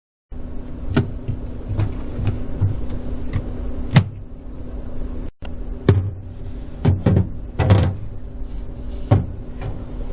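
Refrigerator shelf being handled and slid into its rails, with a series of sharp clicks and knocks as it is set in place, over a steady low hum. The sound breaks off briefly about halfway.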